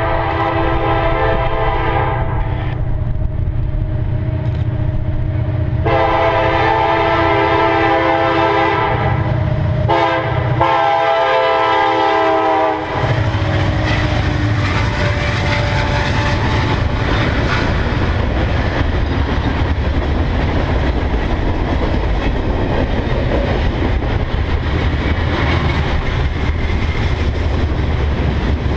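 Union Pacific SD70ACe-led freight train approaching: the locomotive's air horn sounds several long blasts and stops about 13 seconds in. Then the locomotives' diesel engines rumble past, followed by the rolling clatter of the freight cars' wheels on the rails.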